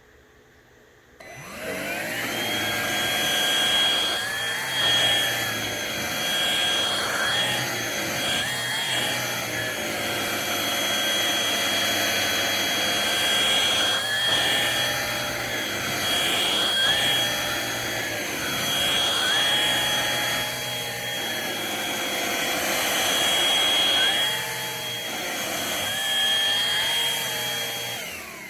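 Bissell Pet Hair Eraser cordless hand vacuum switched on about a second in, its motor spinning up to a steady high whine that wavers in pitch now and then, then switched off near the end.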